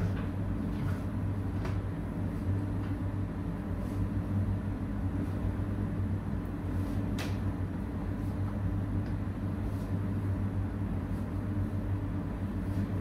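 Steady low mechanical hum, with a few faint light ticks over it, one a little clearer about seven seconds in.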